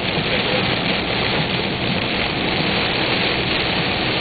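Heavy rain beating steadily on a car's windshield and roof, heard from inside the moving car, mixed with tyre spray from the flooded road.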